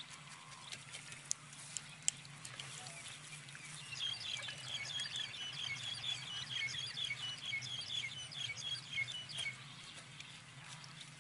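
A metal spoon clicking and scraping against a steel mesh strainer as watermelon flesh is pressed through it. From about four seconds in, a rapid run of high chirps, like a small bird's, goes on for about five seconds and is the loudest sound.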